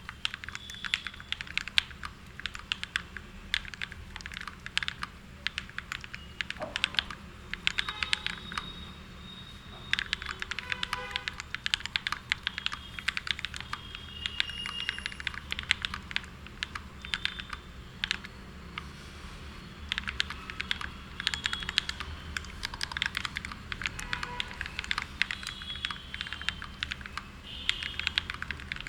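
Typing on a mechanical keyboard fitted with Akko CS Matcha Green switches: rapid runs of clacking keystrokes with a couple of brief pauses, over a faint steady low hum.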